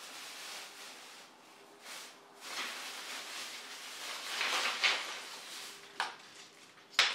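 Thin plastic bag rustling as cut paper stencil pieces are shaken out of it, paper rustling and scattering onto a concrete floor, loudest about two thirds of the way through. A sharp snap near the end.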